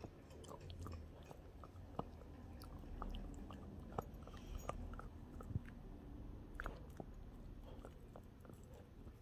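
Bernese mountain dog puppy chewing and gnawing a bone-shaped chew treat: faint, irregular clicks and crunches of teeth on the chew, a few of them sharper.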